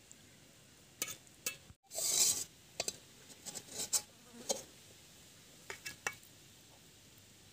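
A metal spatula clinks and scrapes against a metal plate as it turns soft cooked greens and fish. There are a series of short knocks and one louder scrape about two seconds in.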